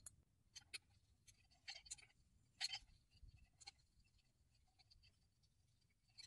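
Faint, irregular scrapes and clicks of a hand working a steel crank pulley on the mower engine's crankshaft, the loudest about two and a half seconds in.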